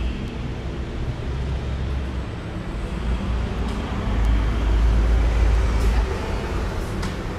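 Street traffic: a steady rumble of passing vehicles, swelling louder for a couple of seconds about midway through.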